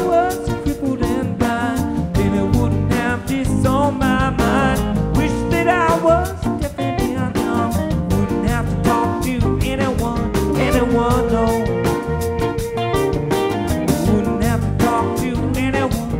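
Live rock band playing: electric guitars, acoustic guitar and drum kit with a steady beat, and a man singing.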